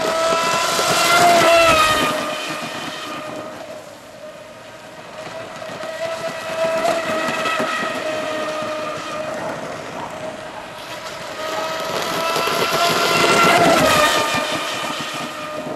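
Electric RC hydroplane running flat out, its Neu 2215 brushless motor and propeller giving a high, steady whine over the hiss of spray. It sweeps close twice, about a second in and again near the end, growing loud and dropping slightly in pitch as it goes by, and fades further off in between.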